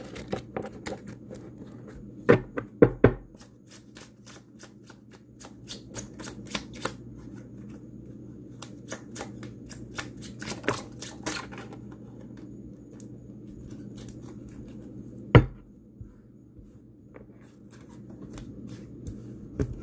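A deck of cards being shuffled by hand: runs of quick flicking clicks as the cards slide and riffle, broken by a few sharp knocks, the loudest about three quarters of the way through. A faint steady hum lies underneath.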